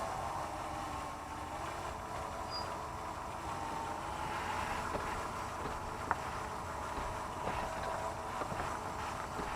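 Front drivetrain of a 2005 Jeep Grand Cherokee with the 5.7L engine, running with steady mechanical noise and a few sharp pops, the loudest about six seconds in. This popping comes with a cold start, and the owner takes it for front axle differential binding, guessing a worn differential bushing.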